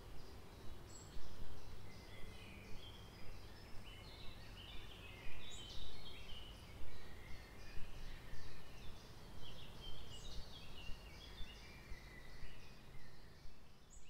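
Several songbirds singing in woodland, many short repeated chirps and trills overlapping, over a steady low background rumble.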